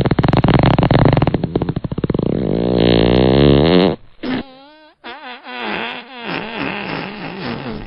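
Fart sounds: one long, loud, buzzing fart whose flutter slows near its end, about four seconds in, then a short puff and a quieter, squeaky fart that wavers in pitch.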